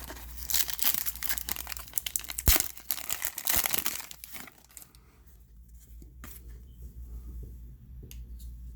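Trading card packaging being torn open and crinkled, busy for about four seconds with one sharp snap partway through, then only faint handling sounds.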